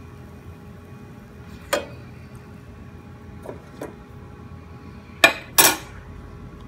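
Metal kitchen utensils clinking against cookware: a single clink, two lighter ones, then two sharp, loud clinks in quick succession near the end.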